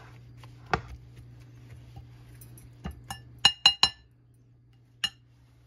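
Spatula stirring seasoned mushroom pieces in a china bowl and striking its side: a soft knock under a second in, a quick run of ringing clinks from about three seconds in, and one last clink about five seconds in.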